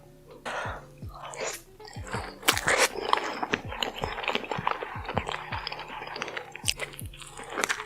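Close-miked eating: crunching bites and chewing of food, ASMR mukbang style, with many sharp crunches. Background music with a steady low drum beat plays underneath.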